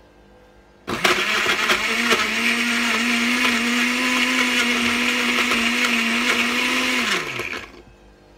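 Countertop blender with a glass jug blending strawberries, banana and milk into a smoothie. The motor starts suddenly about a second in and runs at a steady pitch for about six seconds, then is switched off and winds down with a falling hum.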